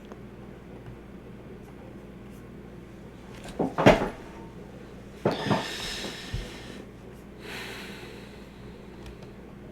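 A few sharp knocks about four seconds in and again about five and a half seconds in, each followed by short rushing noises, over a steady low hum.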